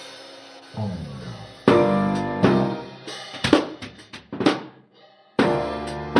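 Instrumental rock music: a keyboard passage drops out, the drum kit plays a fill with quick snare and tom strikes, then the full band comes back in about five and a half seconds in.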